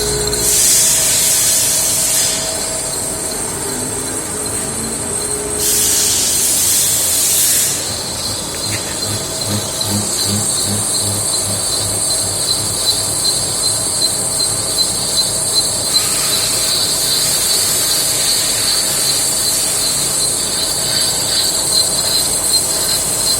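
Lathe turning the outside diameter of a large metal workpiece: the cutting tool on the metal gives a steady high whine and hiss. There are two louder hissing spells in the first eight seconds, then a regular pulse of about two a second.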